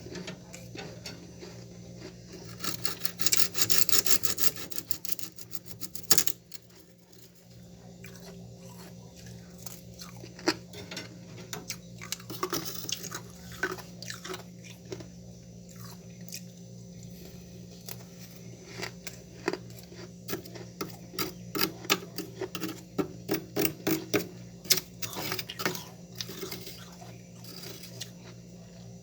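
Frost being scraped from a refrigerator freezer with a dense rasping scrape a few seconds in, then mouthfuls of freezer frost bitten and chewed with many crisp crunches. A steady low hum runs underneath.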